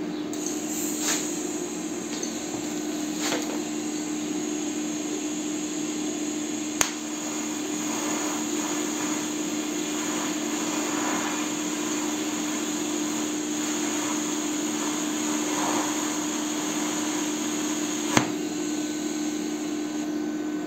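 TIG welding arc from a welding inverter on thin aluminium angle at 90 amps without filler wire: a steady hiss and hum, rougher in the middle, with a sharp click about seven seconds in and another near the end. The arc is burning through the aluminium rather than fusing the two pieces together.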